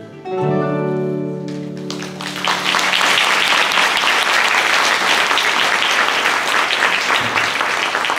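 A fado song ends on a held final note over Portuguese guitar and classical guitar. About two seconds in, the audience breaks into steady applause.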